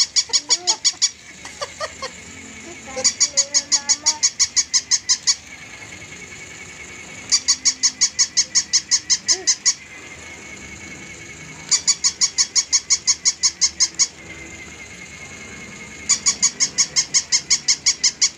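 Battery-operated plush toy dog's sound chip giving bursts of rapid, high-pitched squeaky yaps, about five a second for two seconds or so, repeating every four seconds or so. A faint steady whir runs between the bursts.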